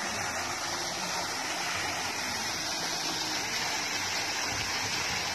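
Fountain water cascading steadily down a sculpted rock face and splashing into the pool below.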